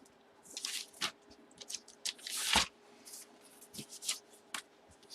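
Trading-card packaging being handled and opened by hand: scattered crinkling and small ticks, with one louder rustle about two and a half seconds in.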